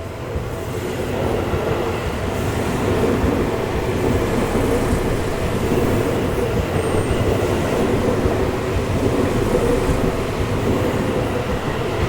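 Seibu Shinjuku Line electric commuter train passing through the level crossing, its wheels running steadily on the rails, growing louder over the first couple of seconds and then holding steady.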